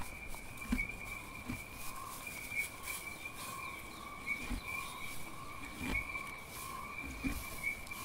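Outdoor bush ambience: a steady high drone held at two pitches, like insects calling, over a soft hiss, with a few faint knocks.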